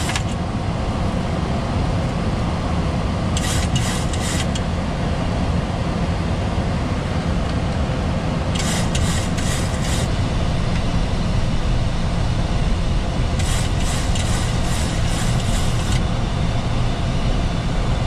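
Steady flight-deck noise of a Boeing 737-800 in flight on approach: a constant low rumble of airflow and engines. Brief bursts of high hiss come every four to five seconds.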